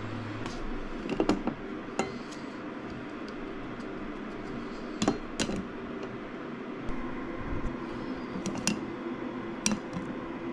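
Light clicks and knocks of a coffee scoop against a stainless mesh coffee filter, and of the filter knocking on its glass carafe as it is shaken to level the ground coffee. The knocks come singly and in pairs, a second or more apart, over a steady room hum.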